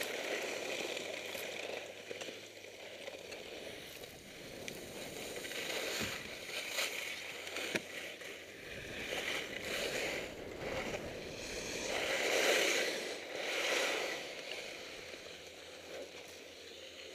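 Skis sliding and scraping over groomed snow during a downhill run, a hiss that swells and fades with the turns and peaks near the end, with a couple of sharp clicks in the middle.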